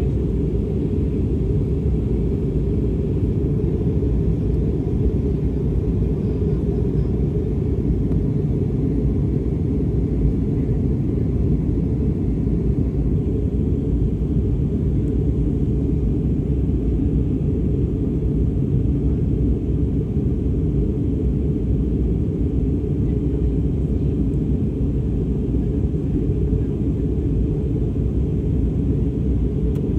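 Steady low rumble of an airliner in flight heard from inside the cabin: engine and airflow noise, unchanging throughout.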